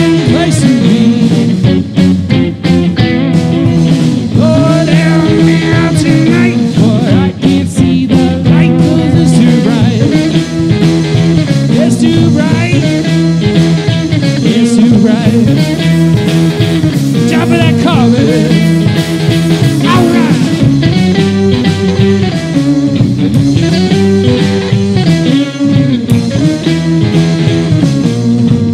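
A rock band playing an instrumental passage: two electric guitars, electric bass and drum kit, with a steady beat and bending, wavering guitar notes.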